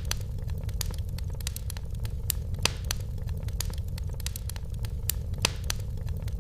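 Wood fire burning in a fireplace: a steady low rumble with frequent irregular crackles and a few louder pops.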